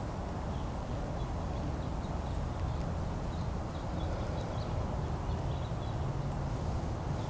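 Outdoor background: a steady low rumble with faint, short high chirps scattered through it.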